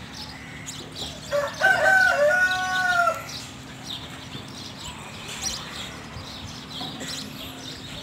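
A rooster crows once, about a second in: a few short notes and then a long held one, nearly two seconds in all. Small birds chirp throughout.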